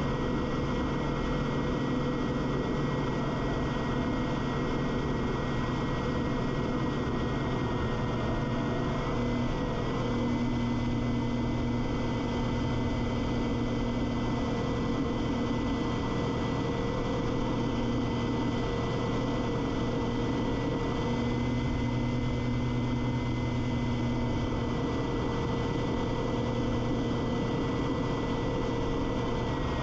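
Quicksilver MX2 ultralight's two-stroke engine and propeller running steadily in flight, with a rush of wind over the microphone. The pitch shifts slightly about a third of the way in and again past two-thirds, as the throttle is eased.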